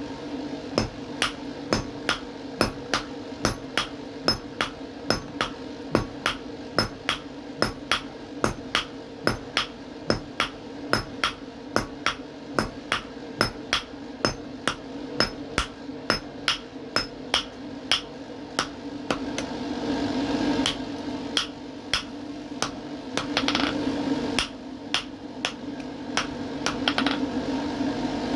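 Blacksmith's hammer striking iron on an anvil in a steady rhythm, about two ringing blows a second, over a steady hum. Twice the blows pause briefly while a louder rushing noise rises.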